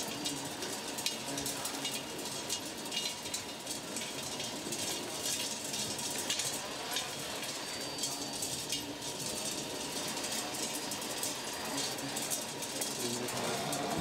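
Radio-controlled model trucks and construction machines at work, with steady clicking and rattling throughout and voices chattering in the background.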